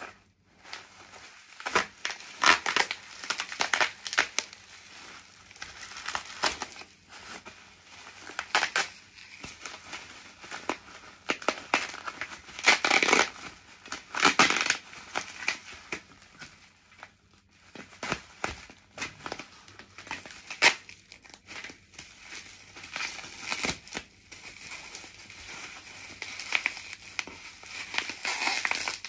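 Plastic bubble wrap crinkling and rustling in irregular bursts as it is pulled open and handled around stacked plates, loudest about halfway through.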